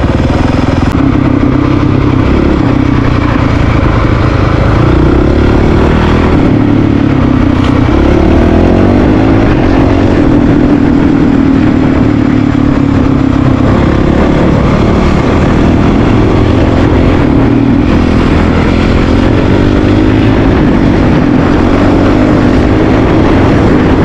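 Honda CRF450RL dual-sport motorcycle's single-cylinder four-stroke engine running while riding, its pitch rising and falling as the throttle opens and closes.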